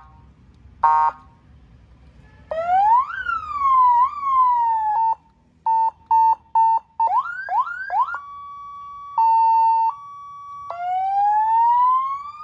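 Cheap Chinese plug-and-play electronic car siren, wired straight to a battery, stepping through its tones. A short horn blast comes about a second in, then rising-and-falling wail sweeps, a few short beeps, quick rising whoops, a steady two-tone high-low, and finally a slow rising wail.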